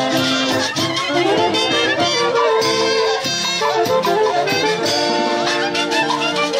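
Andean orquesta music: wind instruments, saxophones and clarinets, carrying a melody over a steady beat.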